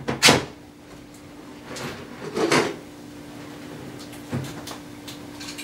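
Coloured marking tape pulled off the roll and wrapped around a flagpole: a short, sharp rip about a quarter second in and a softer one about two and a half seconds in, over a steady low hum.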